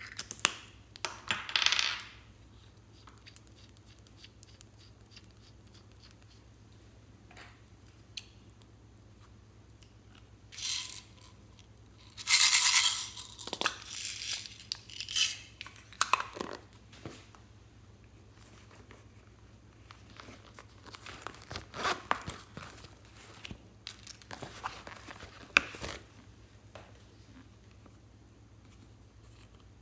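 Small plastic items handled over a plastic bowl: irregular clicks, taps and rattles, including a plastic case of small beads being opened and rattled. They come in scattered bursts with quiet stretches between, the loudest about twelve seconds in.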